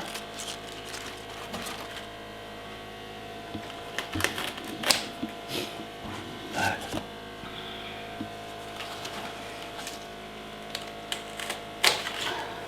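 Scattered light knocks and clicks of a knife and pechay stalks on a cutting board while the vegetable is cut, over a steady hum.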